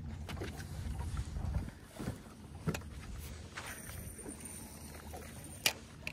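Handling noise on a small fishing boat: a low rumble that drops away after under two seconds, then a few light knocks and clicks from the boat and fishing gear, the sharpest near the end.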